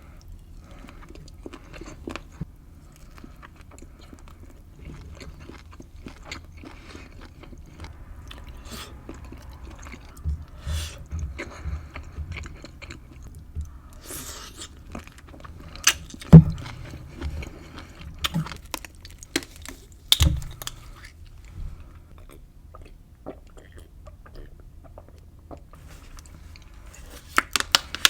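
Close-miked eating of boiled eggs and sausage in a hot honey lemon pepper sauce: chewing, with sharp wet clicks and bites scattered through it. The loudest bites fall about 16 and 20 seconds in, and a quick run of clicks comes near the end.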